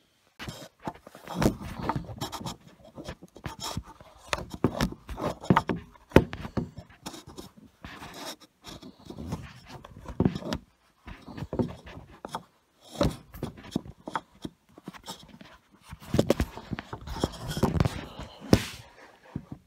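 Handling noise on a phone's microphone as the phone is moved about and fitted into a stand: irregular knocks, scrapes and rustling.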